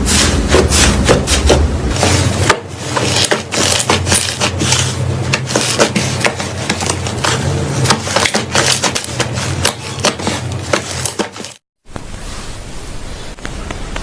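Crunchy slime being squeezed and worked, giving dense crackling and popping. Near the end it cuts off abruptly and switches to a quieter, softer crackle.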